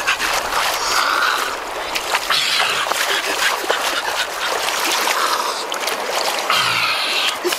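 Stream water splashing as hands scoop it up and throw it back, in repeated short splashes over the steady sound of running shallow water.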